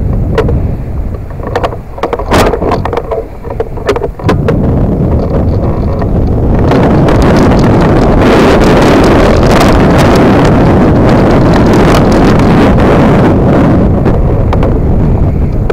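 Wind buffeting the microphone with road rumble during a ride on an electric scooter, with scattered knocks in the first few seconds. About six and a half seconds in the wind swells to a loud, steady rush, easing slightly near the end.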